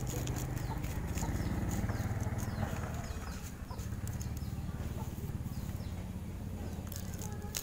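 Outdoor ambience: birds making repeated short, high, falling chirps over a steady low hum.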